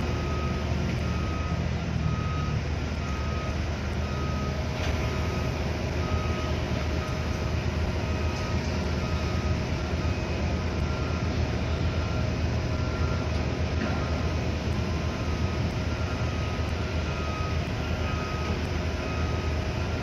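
A construction-site reversing or motion alarm gives steady, evenly spaced beeps at a single pitch. Under it runs the steady low rumble of heavy machinery engines.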